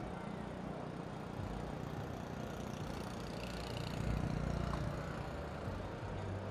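Steady stadium ambience: a low, even rumble of a large crowd heard at a distance, swelling slightly about four seconds in.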